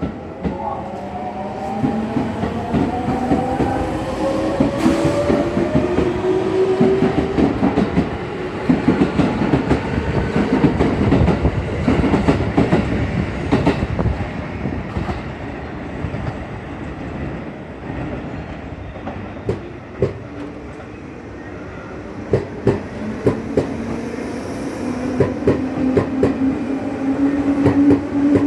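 Electric commuter train pulling out, its traction motors whining upward in pitch as it speeds up, then wheels clattering and knocking over rail joints and points. Near the end another train's motor whine rises slowly.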